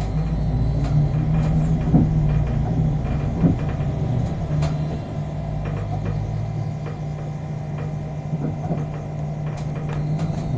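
Battery-electric city bus driving, heard from inside: a steady low drive hum with road noise, rattles and a few short knocks, easing off a little just past the middle.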